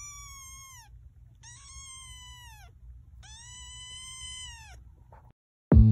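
A cat meowing three times, each meow drawn out and high-pitched and dropping in pitch at its end, over a low steady hum. Loud electric guitar music cuts in abruptly near the end.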